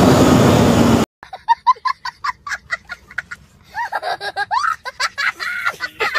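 About a second of loud motorcycle riding noise cuts off abruptly. A young child then laughs hard in a quick run of short, high giggles that turn into longer, wavering laughter.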